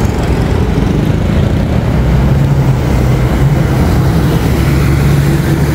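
Busy city road traffic: cars and buses driving past, with the steady low drone of a bus engine close by.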